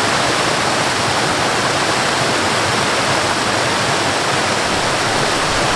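A high waterfall pouring steadily, an even rush of falling water with no breaks.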